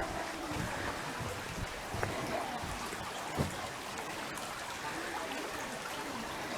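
Stream water running and trickling steadily, with a soft knock about three and a half seconds in.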